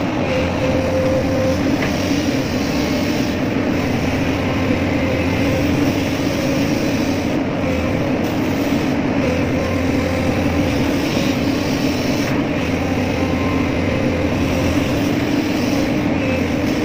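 Magnetic excavator's diesel engine and hydraulics running steadily, a continuous drone with a thin steady whine.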